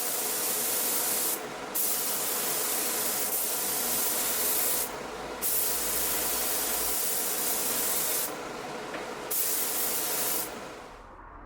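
Spray gun spraying Cerakote coating, a steady air hiss in four long passes with brief breaks between them. The hiss fades out near the end.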